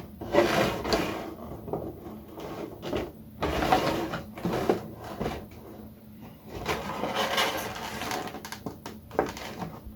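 Tape being pulled off the sides of a cardboard and plastic figure box, with irregular bursts of rustling and scraping as the packaging is handled.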